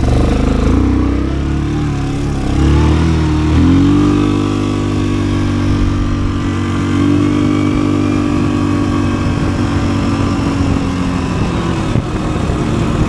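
Triton Quad 700 4x4 ATV engine heard from the rider's seat. Its pitch shifts up and down for the first few seconds, climbs about four seconds in, then runs at a steady pitch as the quad rides along.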